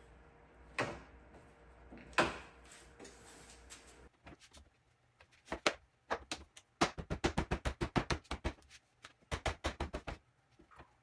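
Two sharp plastic knocks as the tailgate light assembly is pressed into its opening, then runs of rapid, evenly spaced clicking, about six or seven a second, from hand work on the tailgate parts.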